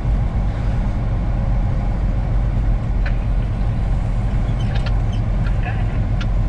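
Steady engine and road drone heard inside a semi-truck's cab while driving, a low rumble, with a few faint clicks in the second half.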